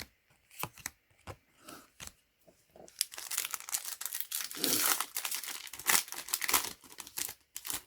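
A few light clicks of handling, then about three seconds in a foil trading-card booster pack is torn open and its wrapper crinkled.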